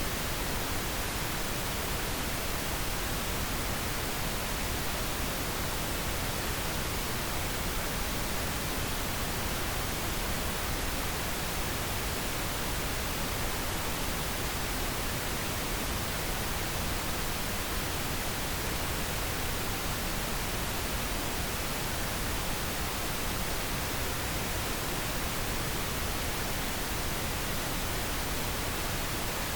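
Pink noise: a steady, even hiss.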